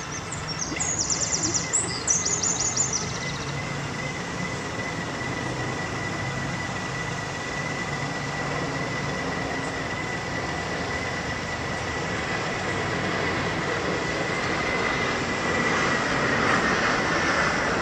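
Small model vessel's motor running with a steady thin whine under a constant rushing noise. A brief burst of high chirping comes in the first few seconds.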